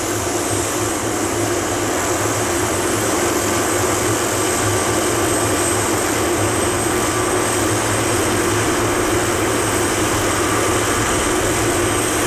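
Helicopter running steadily on the ground, a constant engine hum with a thin high whine and no change in pitch.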